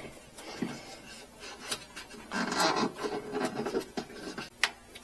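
Hands working on engine wiring under a mini truck: rubbing and scraping with scattered small clicks, and a louder scraping rustle about two and a half seconds in.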